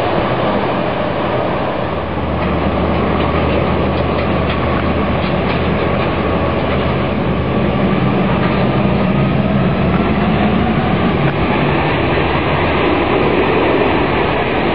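Boeing C-17 Globemaster III's four Pratt & Whitney F117 turbofan engines running while the jet taxis: a loud, steady jet rumble with a low drone under it.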